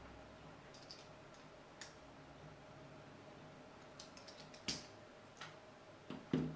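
Light clicks and taps of a small screwdriver and a small electronics circuit board being handled. A sharper cluster of clicks comes a little before five seconds in, and a duller knock near the end.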